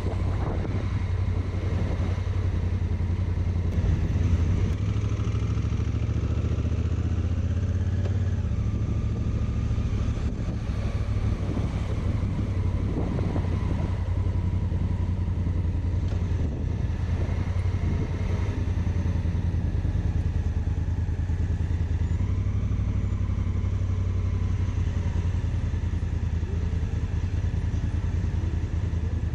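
Honda Africa Twin's parallel-twin engine running steadily at low town speed, heard from on the bike, with a steady low engine note.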